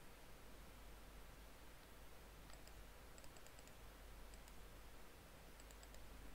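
Near silence with a low steady hum, broken by a few small clusters of faint clicks from about two and a half seconds in: computer mouse clicks on a desk.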